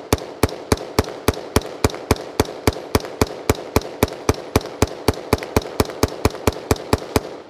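BCM AR-15 in 5.56 firing rapid semi-automatic shots at a steady pace of about four a second, each a sharp crack of equal loudness, stopping near the end.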